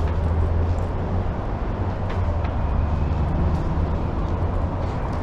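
Steady low rumble with a low engine-like hum, and a few faint clicks about two seconds in.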